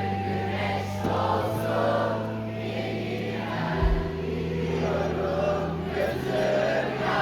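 Live rock band playing, with a crowd of concert-goers singing along. The held bass notes shift to a new chord about four seconds in.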